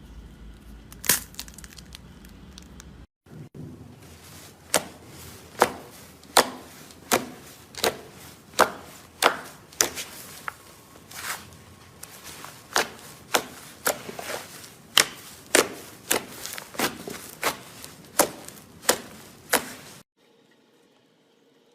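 Slime being squeezed and pressed by hand, making a run of sharp clicking pops, about one or two a second. The sound stops abruptly near the end.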